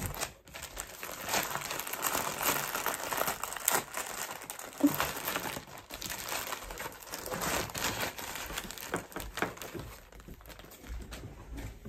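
Clear plastic bags crinkling and rustling in irregular bursts as they are handled and unpacked.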